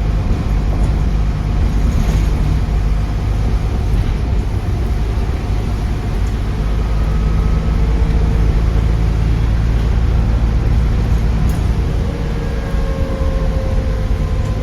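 Stagecoach Midlands bus 18398 under way: a steady diesel engine hum with road noise. From about three-quarters of the way in, a turbocharger whistle slides slowly down in pitch.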